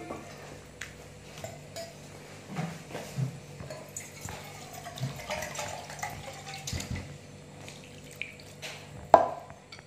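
Metal spoon clinking against a ceramic bowl while batter is mixed, and water poured from an enamel mug into the flour-and-egg batter to thin it. A single sharp clink near the end is the loudest sound.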